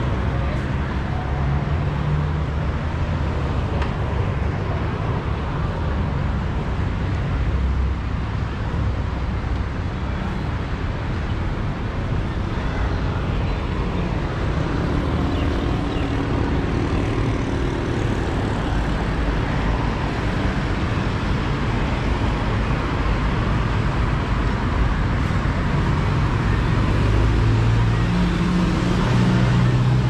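Outdoor market ambience: a steady rumble of road traffic with scattered faint voices.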